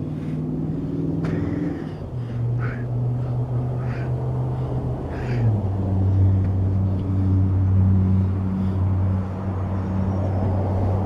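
An engine running steadily with a low hum. Its pitch drops in two steps, about two seconds in and again about five and a half seconds in. A few brief short noises sound over it.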